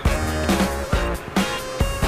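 Background instrumental music with a steady beat of about two a second and a heavy bass line.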